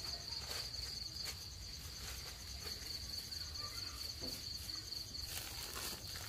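Crickets trilling steadily at night, a continuous high-pitched pulsing chorus, with a few faint clicks of kitchenware handling and a short rustle near the end.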